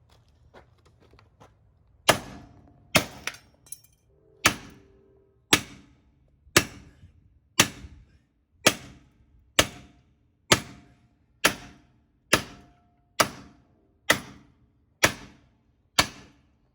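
Hammer blows on the car's bent front-end metal, about one a second and evenly paced, each with a short ring, starting about two seconds in: straightening the collision-damaged frame.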